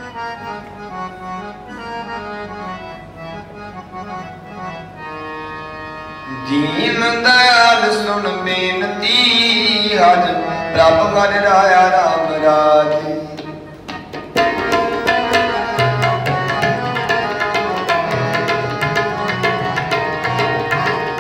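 Harmonium playing a melody in Sikh shabad kirtan style. From about six seconds in a voice sings over it with gliding pitch, louder. From about fourteen seconds the tabla comes in with fast, steady strokes.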